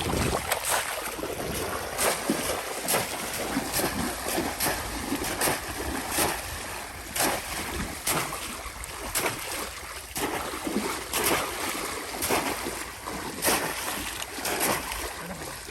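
Shallow river water splashing and sloshing as people wade and plunge bamboo polo basket traps, with irregular splashes about once a second over a steady wash of water.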